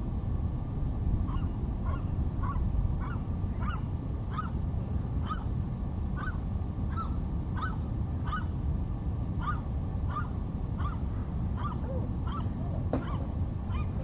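Birds calling: a short rising call repeated one to two times a second, over a steady low rumble.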